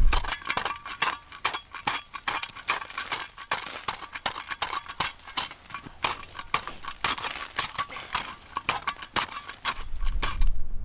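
Rapid, irregular run of crisp crunching clicks, several a second.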